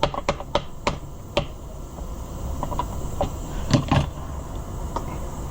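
Small metal chainsaw parts and hand tools clicking and tapping as they are handled and fitted: a quick run of clicks at first, then scattered taps and a louder knock about four seconds in, over a steady low hum.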